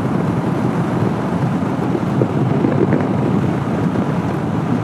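Steady wind rush on the rider's microphone with the Honda CB500X's parallel-twin engine and road noise running underneath, while riding in traffic.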